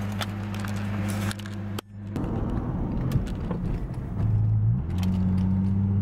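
Second-generation Lexus IS's V6 engine droning steadily, heard from inside the cabin while driving. Its note steps up about four seconds in and then holds steady, with a few light clicks and rattles in the car.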